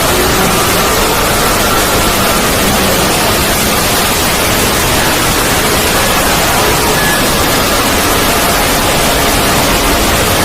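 Void sound effect: a loud, steady wash of static-like noise across the whole range, with faint thin tones drifting in and out underneath.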